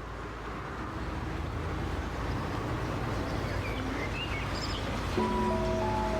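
Steady outdoor background noise that slowly grows louder, with a few faint chirps in the middle. Held music notes come in about five seconds in.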